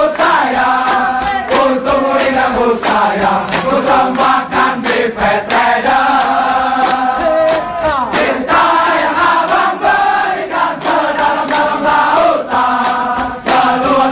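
Choral music: many voices singing long held notes over sharp percussive hits.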